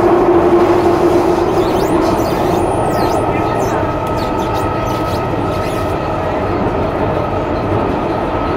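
Kawasaki-Nippon Sharyo C751B metro train running, heard from inside the car: steady wheel-on-rail rumble with its IGBT-VVVF traction inverter and motor whine. A low tone fades out in the first two seconds, then a thin high steady whine sets in about three seconds in.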